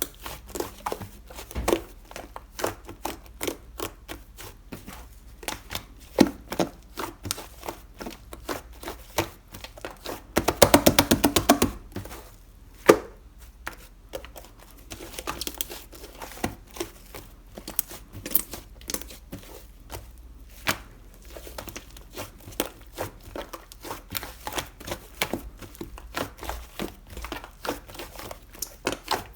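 Hands squishing and kneading a strawberry cream slime: irregular sticky crackles and popping clicks, with a fast run of rapid clicks a little past ten seconds in and a sharp pop just after.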